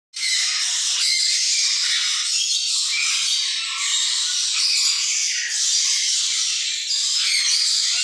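Dense, steady chatter of many caged birds chirping and squawking together.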